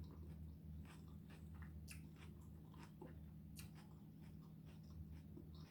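Faint close-up chewing of food, with scattered soft clicks and small crunches, over a steady low hum.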